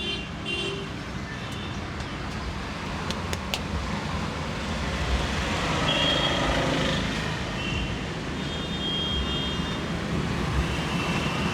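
Street traffic noise: a steady low rumble of passing vehicles, with a few brief high tones over it.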